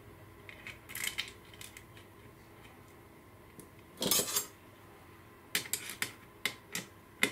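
Small metal clinks and clicks as a washer and screw are worked onto a model bogie's pivot, with a brief scuffing sound about four seconds in, then a run of sharp clicks near the end as a small screwdriver turns the pivot screw.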